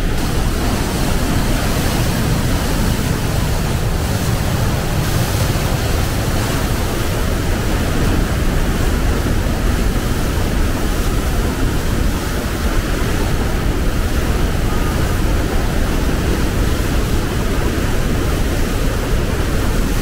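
The Rhine Falls' water rushing and churning at close range: a loud, steady noise that does not let up.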